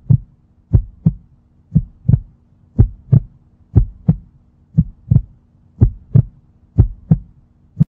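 Heartbeat sound effect: paired thumps, one beat and a second close behind, repeating about once a second, over a faint steady low hum.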